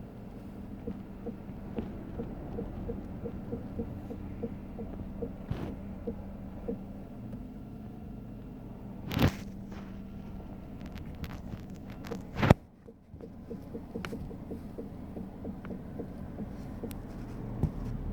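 2016 Toyota Wish's front suspension making a regular clicking noise, about three clicks a second, as the steering wheel is turned, over a steady engine hum, with two loud knocks in the middle. A diagnostic test put the noise down to a failed front strut top mount, but it persists after the mount was replaced.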